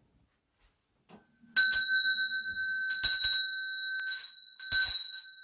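A small metal bell rung in four short bursts of one to three quick strokes each, starting about a second and a half in, its ring carrying on between the bursts.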